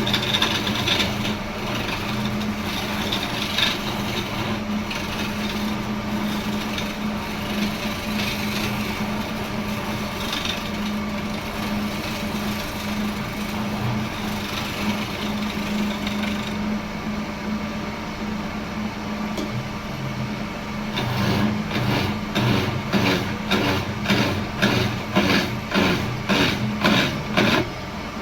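An electric woodworking machine runs with a steady motor hum while wood is worked on it. About three quarters of the way in, a regular scraping or knocking rhythm starts, about two strokes a second.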